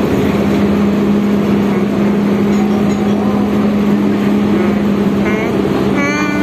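Inside a Transjakarta city bus on the move: a steady rumble of the drivetrain and road with a constant low hum. Near the end come two brief wavering high-pitched squeals.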